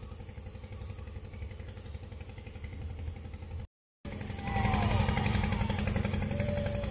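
A small engine running steadily with a fast, even pulse. The sound drops out completely for a moment about halfway through, then returns louder with a whining pitch that rises and falls.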